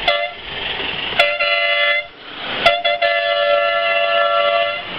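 Live-steam model locomotive whistle blowing three times: a short toot, then a blast of under a second, then a long blast of about two seconds, each with two tones sounding together.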